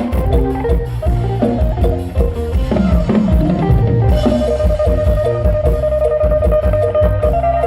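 Mor lam band playing an instrumental passage: a drum kit keeps a steady beat under plucked strings, and a long held note comes in about four seconds in.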